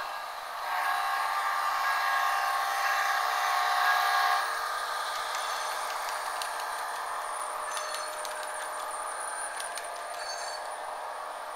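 Model locomotive's Soundtraxx Tsunami sound decoder sounding an F59PH diesel horn chord for about four seconds, then the diesel engine sound running on with light clicks from the train rolling along the track.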